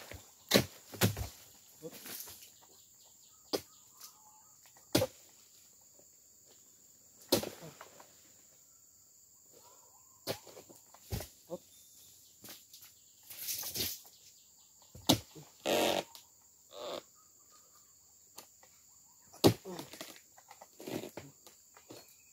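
Oil palm harvesting at the tree: scattered sharp knocks and a few short rustling crashes, spaced seconds apart, as fronds and fruit bunches are cut from the palm. A steady high insect drone runs underneath.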